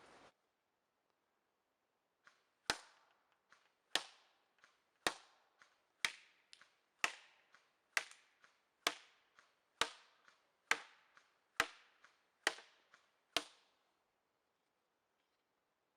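Airsoft electric MP5 firing single shots: about a dozen sharp clicks roughly one a second, with fainter clicks between them.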